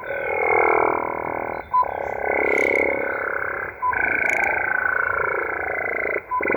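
Unidentified signal on 5065 kHz heard through a shortwave receiver in upper sideband mode. It repeats in bursts about two seconds long, each opening with a short beep after a brief gap and carrying a dense buzzy mix of sweeping tones cut off above the sideband's narrow audio range.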